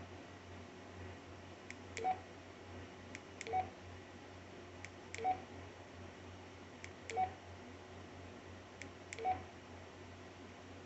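Baofeng UV-5R handheld radio keypad pressed five times, about every one and a half to two seconds. Each press gives a pair of small clicks and a short keypad beep from the radio.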